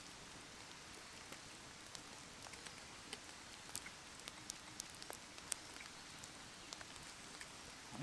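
Meltwater and thawing snow dripping from the trees, a faint steady background with scattered light taps of drops landing.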